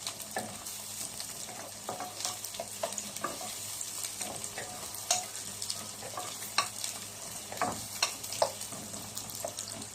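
Garlic, onion and celery sizzling in hot oil in a pan while being stirred, with irregular scrapes and taps of the utensil against the pan.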